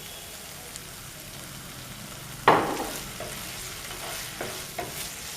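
Sliced vegetables and sauces frying in a hot pan over high flame, sizzling steadily while a spatula stirs them. A sudden louder burst comes about halfway through and fades, followed by short scraping strokes of the stirring.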